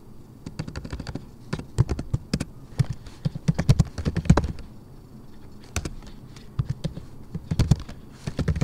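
Typing on a computer keyboard, quick runs of key clicks broken by short pauses.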